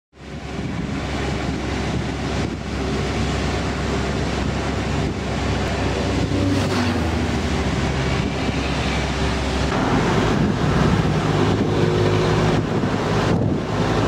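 Engine and road noise of an open-sided passenger pickup truck (songthaew) on the move, heard from its rear bench, with wind buffeting the microphone. The engine's low note changes about ten seconds in.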